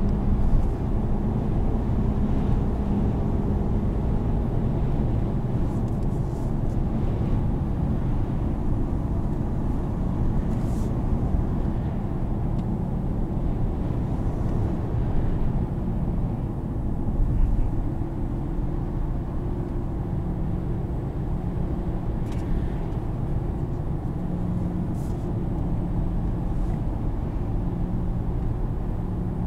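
Cabin noise of a 2020 Chevrolet Silverado 1500 pickup driving at road speed: a steady low hum of engine and tyre rumble, with a few faint clicks.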